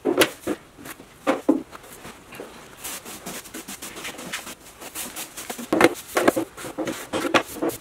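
Corn broom sweeping sawdust across a concrete floor into a dustpan, in short, irregular swishes.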